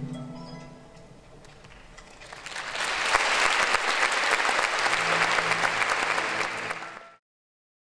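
Theatre audience applauding, swelling from about two seconds in into full, dense clapping that cuts off suddenly near the end. The orchestra's last notes fade away just before the applause starts.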